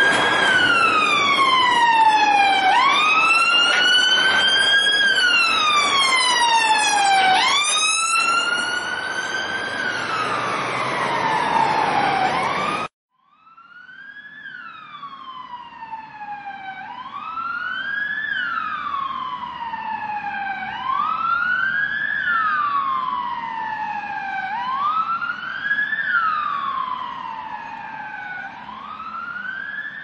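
Emergency vehicle siren wailing, its pitch rising quickly and falling slowly about every two and a half seconds. It cuts off suddenly about 13 seconds in, and a second, quieter siren recording fades in and keeps wailing in the same rise-and-fall pattern.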